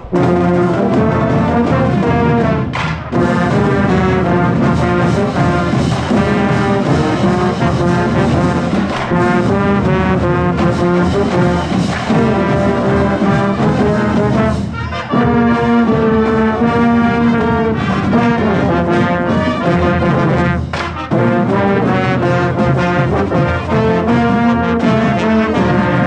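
Marching band brass section playing a loud chordal tune with drums underneath, pausing briefly between phrases.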